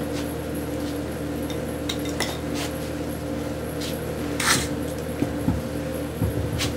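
Metal parts of an E30 limited-slip differential clinking and knocking as they are handled, with the loudest clink about four and a half seconds in, over a steady background hum.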